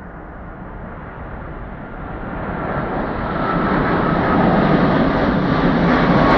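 Boeing 767's twin jet engines at takeoff power as the airliner rolls along the runway toward and past the listener. It is a steady jet rush with a thin whine on top, growing louder over the first four seconds or so and then holding loud.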